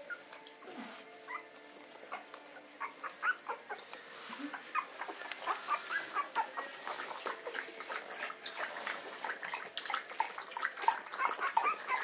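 Puppies about 17 days old squeaking and whimpering in many short, high-pitched cries, coming thicker from a few seconds in.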